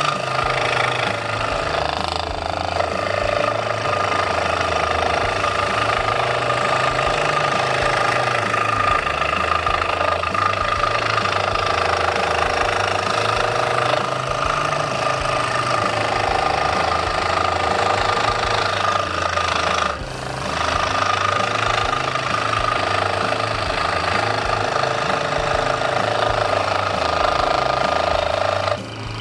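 Electric scroll saw running and cutting wood, a steady mechanical buzz that dips briefly about two-thirds of the way through.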